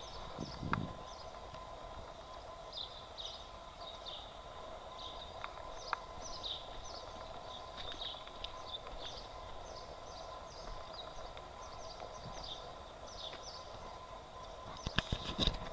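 Small birds chirping over and over in short, high, falling notes, above a steady low hum. A few sharp clicks come near the end.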